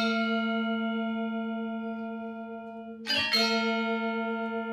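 Bronze gamelan instrument struck and left to ring with a long, slowly fading sustain; a second strike comes about three seconds in and rings on.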